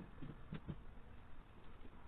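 A few scattered light knocks and clicks, irregularly spaced, over a faint background hiss.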